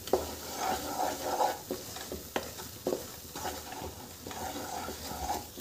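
Wheat flour roasting in bubbling ghee and oil in a nonstick pan, sizzling steadily, while a wooden spatula stirs it with irregular scrapes and taps against the pan. The flour is being fried until it turns light brown.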